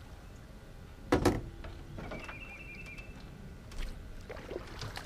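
A single sharp knock against the boat about a second in, followed by a few smaller knocks and handling noises as a catfish is landed at the side of the boat. A faint high chirping repeats in the background.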